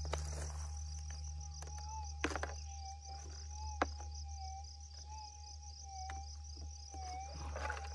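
Minelab GPX 6000 gold detector holding its steady threshold tone, which wavers slightly as a plastic scoop of soil is passed over the coil, with crickets chirping in a rapid, even pulse. A few short clicks and scrapes from the scoop and dirt.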